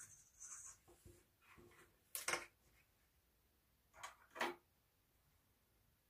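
550 paracord being handled and pulled tight through a bracelet weave: faint rubbing and rustling, with one sharp swish about two seconds in and two shorter ones a little after four seconds.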